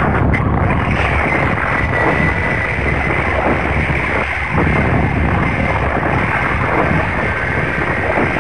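Loud, dense noise from the installation's soundtrack, heaviest in the low end, with a thin steady high tone over it.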